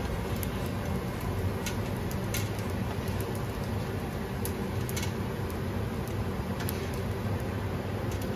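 Rice patties frying in a nonstick pan over a steady low hum, with a few sharp clicks from a spatula as it lifts the patties out of the pan.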